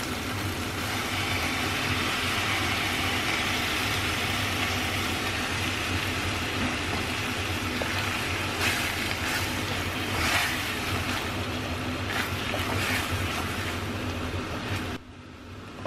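Hot stock hitting the rice in a stainless-steel sauté pan, sizzling and bubbling, the hiss swelling about a second in. In the second half a wooden spoon scrapes and stirs across the pan several times, over a steady low hum. The sound drops away abruptly near the end.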